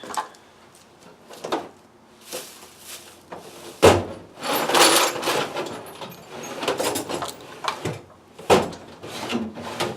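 Rummaging among hand tools: scattered clicks and clatter, a sharp bang about four seconds in followed by a couple of seconds of rattling, and another bang near the end.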